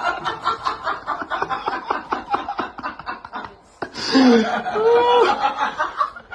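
A person laughing in quick, repeated snickering pulses for about three and a half seconds. After a brief pause, a few short pitched vocal sounds with bending pitch follow.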